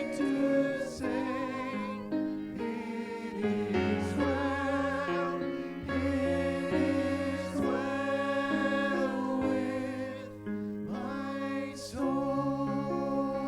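Worship music: several voices singing long, held notes over an accompaniment, the chords changing every second or two.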